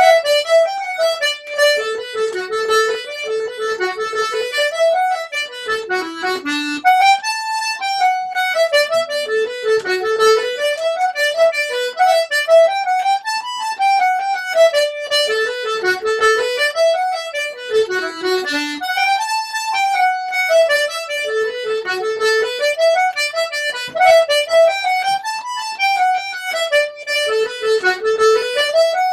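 Two two-row button accordions playing a fast Irish reel together, a quick running melody with the phrase coming round about every six seconds.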